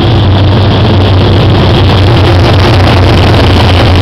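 GE diesel-electric locomotive (SRT No. 4045) running as it draws level and passes close by: a loud, steady low engine drone that swells slightly after the first second.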